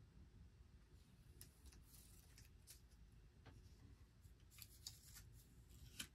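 Faint crinkling and small ticks of blue painter's tape being handled and worked between the fingers, scattered irregularly over near silence.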